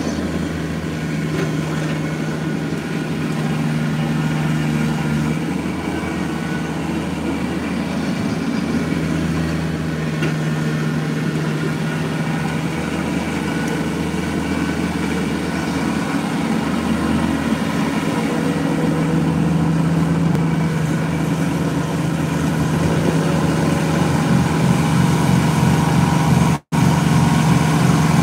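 Kubota BX compact tractor's three-cylinder diesel engine running steadily while it clears snow with its front PTO snowblower, the engine note shifting a little as it works. It grows louder near the end as the tractor comes toward the camera.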